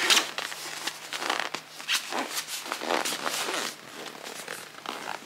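Zipper on a child's fabric rolling suitcase being pulled closed in short, uneven tugs, with the fabric case rustling as it is handled.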